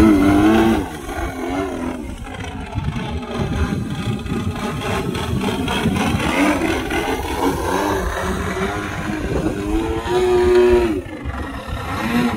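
OS GT33 single-cylinder two-stroke petrol engine and propeller of a radio-controlled Extra 330 aerobatic plane, the throttle opening and closing. The pitch rises and falls, with louder surges of power at the start and again about ten seconds in.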